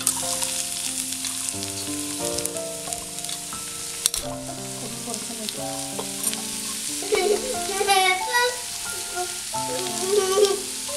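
Chopped onions sizzling as they fry in hot ghee in a nonstick pan, a steady frying hiss, with a sharp click about four seconds in. Soft background music of held notes plays underneath.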